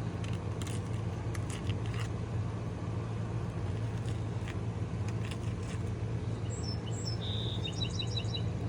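Steady low mechanical hum with a songbird singing a short trilled phrase near the end, a higher call just before it. Faint light taps and scrapes, from a shingle being handled on the roof, come in the first half.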